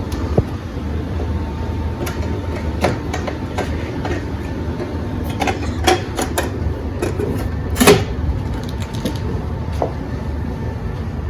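A steady low hum with scattered light clicks and knocks of small objects being handled, the loudest knock about eight seconds in.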